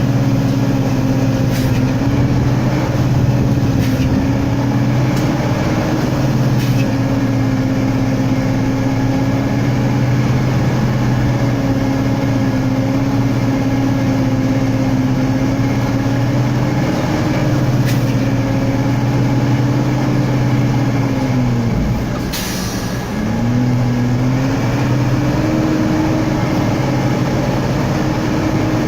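Logging truck's diesel engine running under load, its pitch rising and falling. About three-quarters of the way through, the engine drops away and a short hiss of air sounds, then it pulls back up in pitch.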